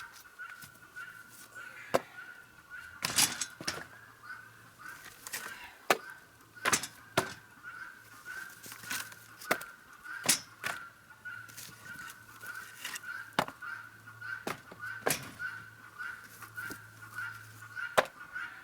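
Cut pieces of slab firewood knocked together and dropped onto a load, giving a string of sharp wooden clacks at irregular intervals. Behind them runs a steady, rapidly pulsing high chirp.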